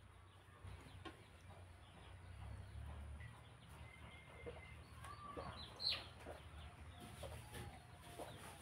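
Soft gulping and swallowing as a glass of juice is drunk, with a sharp click a little before the six-second mark. Faint bird calls sound in the background.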